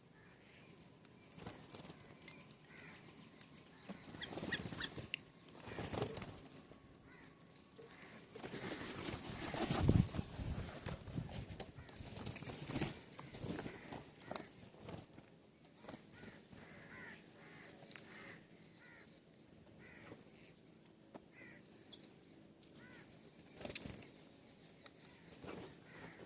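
Small birds at a feeder: wings fluttering in several irregular bursts, the loudest about ten seconds in, with scattered short chirps and clicks.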